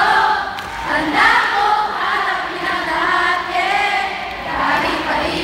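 Large concert crowd singing a pop song together in unison, many voices joining in the melody.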